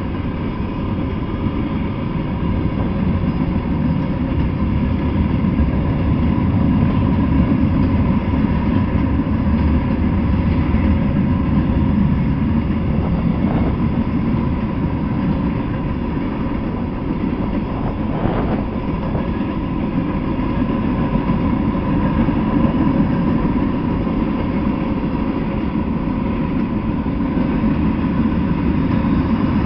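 Freight train of covered hopper cars and boxcars rolling past on the track: a steady heavy rumble of wheels on rail with a thin steady whine above it, and a couple of short clanks from the passing cars.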